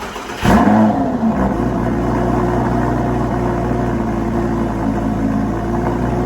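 Lamborghini Gallardo LP's V10 cold start: the starter cranks briefly, the engine catches about half a second in with a loud rev flare that falls away, then settles into a steady fast cold idle.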